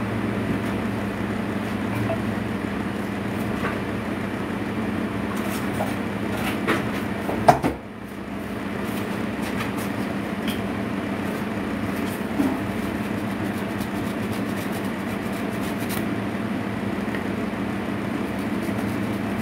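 Steady low machine hum with a few light knocks and clicks, the loudest about seven and a half seconds in.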